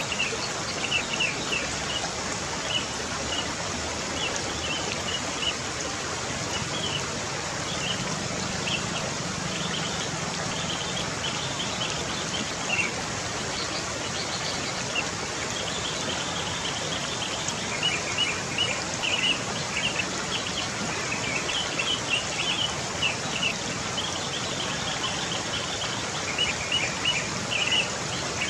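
Sparrows chirping in quick repeated bursts of short, high notes, coming in clusters throughout, over a steady outdoor hiss.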